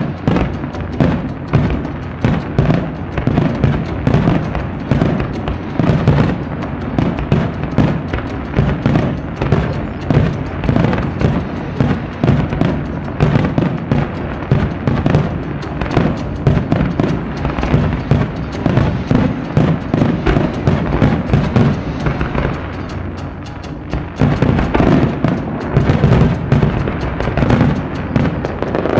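Continuous fireworks barrage: many shells launching, bursting and crackling in rapid succession, mixed with live wadaiko (Japanese taiko) drumming. It eases briefly about three-quarters of the way through, then builds again.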